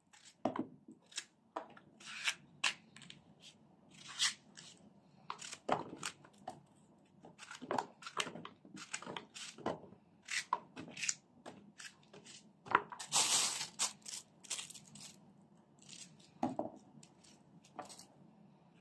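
Knife cutting a fresh, unpeeled zucchini held in the hand: an irregular run of short crisp cuts, with a longer scraping cut about 13 seconds in. The small cubes drop into a plastic bowl.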